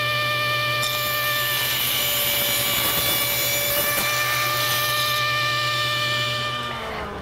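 Table saw running with a steady whine while its blade cuts along the edge of a wooden box lid held on end against the fence, raising a small panel; the cut adds a hiss for about four seconds. Near the end the saw is switched off and its pitch falls as it spins down.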